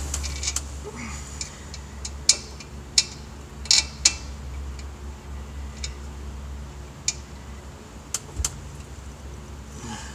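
Scattered sharp metallic clinks and taps, about nine of them at uneven intervals, from hand work on metal parts while a starter is being fitted, over a low steady hum.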